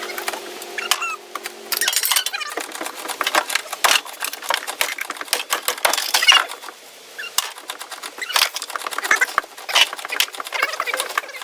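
Rapid clicks, knocks and squeaks of hard parts being pried, pulled and handled, with a steady hum that stops about two seconds in.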